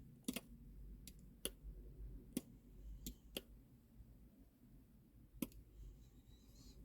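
Faint, sharp clicks, about seven of them, irregularly spaced, with two close pairs in the first half and one more about five and a half seconds in.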